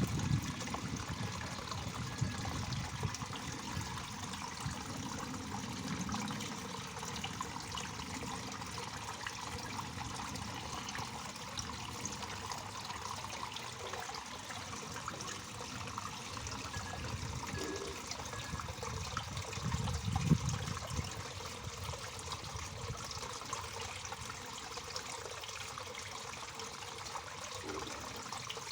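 Waterfall: water falling and splashing in a steady, unbroken rush, with a low rumble swelling briefly about twenty seconds in.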